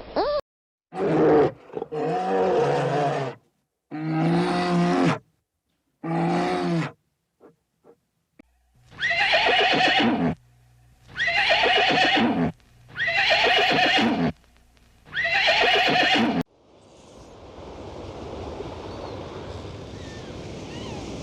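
Horse whinnying: seven separate calls, each about a second long, with abrupt silent gaps between them. From about sixteen seconds in, a steady rushing noise takes over.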